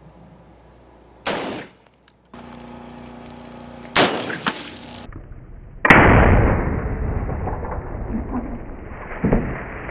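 Rifle reports from a .308 (7.62×51mm) LR308 rifle fired at a body-armour plate. There are sharp cracks about a second in and at four seconds, then the loudest report near six seconds, trailing off in a long rumble, and a smaller crack near the end.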